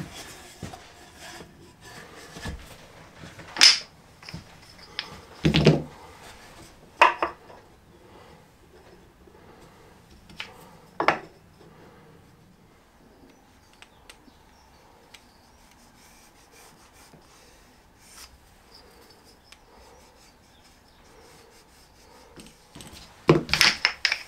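Wood and hand tools being handled on a workbench: a few scattered short knocks and scrapes, a quiet stretch in the middle, then a quick cluster of knocks near the end.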